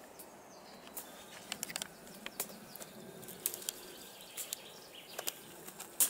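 Footsteps through dry pine-forest litter, with irregular crackles and snaps of small twigs underfoot and a louder snap near the end.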